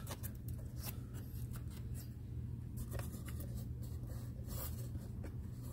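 A hand rubbing and scratching lightly along wooden framing and roof sheathing, a scatter of short, faint scrapes over a steady low hum.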